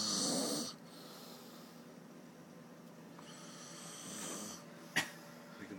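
A sleeping person snoring: a loud snoring breath at the start and a softer one about three to four seconds in, with a single sharp click near the end.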